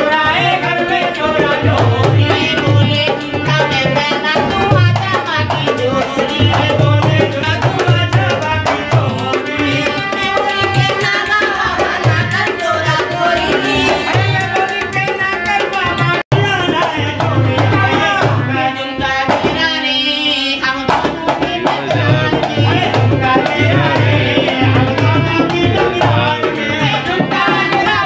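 Live dholak barrel drum played in a fast steady rhythm, with harmonium and singing over it: Indian folk dance music.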